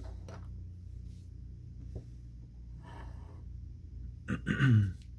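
Quiet handling of a trading card being set into a clear plastic card stand, with a light tap about two seconds in, over a steady low hum. Near the end, a short wordless voice sound falling in pitch.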